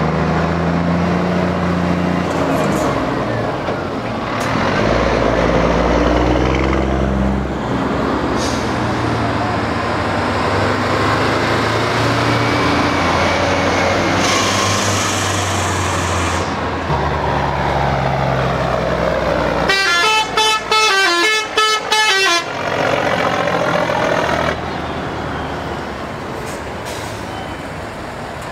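Heavy diesel trucks driving past one after another, their engines running and changing pitch as each goes by, with a hiss lasting about two seconds around halfway. About 20 seconds in, a truck's musical air horn plays a quick stepped tune for about three seconds.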